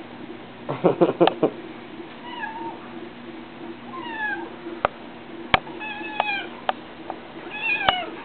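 Domestic cat meowing as it plays: about four short mews that fall in pitch, the third a quick run of several. Sharp taps and knocks come in between, with a cluster of them about a second in.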